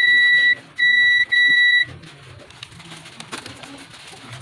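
Digital multimeter's continuity buzzer beeping three times, each a steady high-pitched beep of about half a second, the last two close together, as its probes touch capacitors on the T-con board. A continuity beep signals a short or very low resistance between the probed points, the check used to find a shorted capacitor.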